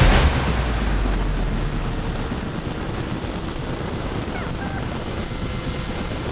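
Wind rushing over the microphone of a Honda Transalp motorcycle on the move, a steady noise with the bike's running engine low beneath it.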